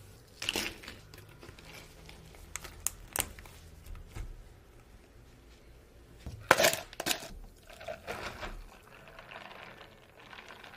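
Scattered clinks and clatters of a metal ice scoop, ice and plastic cups being handled, with the loudest cluster about six and a half seconds in. Near the end, a drink is poured into a plastic cup.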